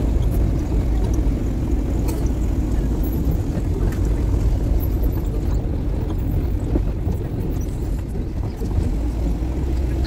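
Steady engine and road rumble of a tour vehicle heard from on board while it drives, with a few light knocks and rattles.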